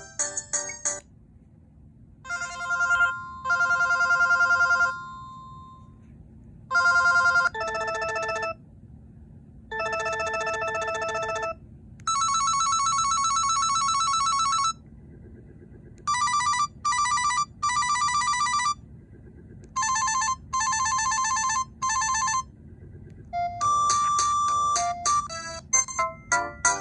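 Audiovox CDM-8900 cell phone playing its built-in ringtones one after another: short electronic beeping tunes, each lasting one to three seconds, with brief pauses between them.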